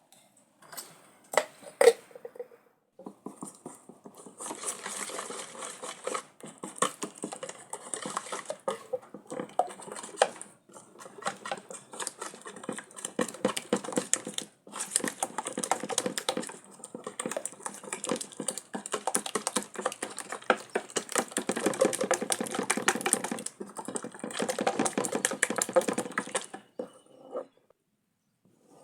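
Dense rustling and crackling from something being handled, with two sharp knocks about two seconds in and a few short breaks.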